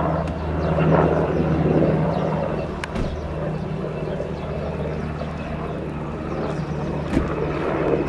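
Sikorsky VH-60N WhiteHawk helicopter in flight, a steady low drone that is loudest about one to two seconds in and then eases off slightly.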